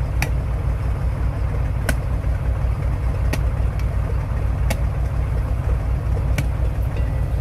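A spade chopping at a tree stump: five sharp strikes about a second and a half apart, over the steady low drone of an idling truck engine.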